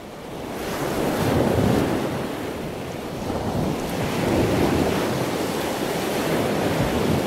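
Ocean surf: a steady rush of waves washing in, building over the first second and swelling and easing twice.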